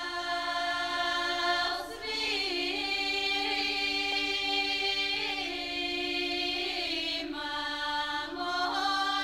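Recorded song playing: long held choir-like sung notes with a slight waver, moving to a new pitch every couple of seconds.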